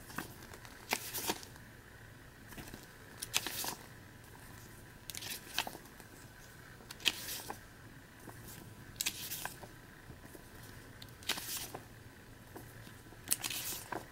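Pages of a glossy paper booklet being turned one after another: about seven short papery swishes and crackles, roughly every two seconds.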